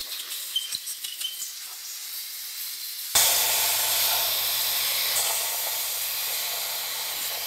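A pressurised nozzle hissing steadily at an engine block. The hiss starts suddenly about three seconds in and is loud and even; before it there is only a faint hiss with a few light clicks.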